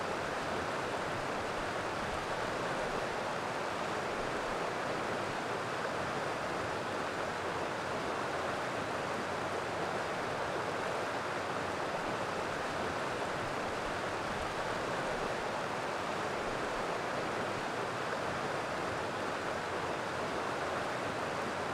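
Shallow stream water rushing steadily over rocks, an even hiss with no breaks or splashes standing out.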